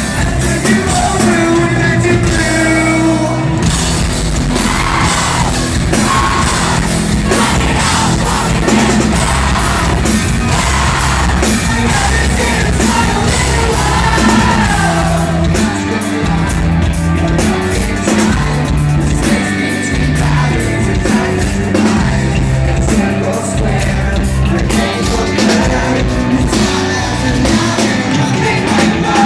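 Loud live rock band playing, with a singer singing and yelling over it, recorded on a phone from inside the crowd at the front barrier.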